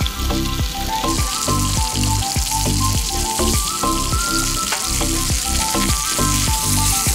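Breaded meat cutlets sizzling in oil in a frying pan over a wood fire, the sizzle growing louder about a second in. Music with a bass line plays over it.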